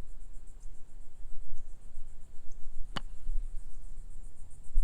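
A single sharp golf club strike about three seconds in: a bunker shot skulled off rock-hard sand. Behind it, insects chirr steadily with a low rumble.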